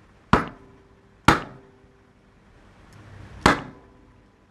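Three sharp knocks of hard hammer-drill gearbox parts being handled and set down on a wooden workbench, the first two about a second apart and the third about two seconds later.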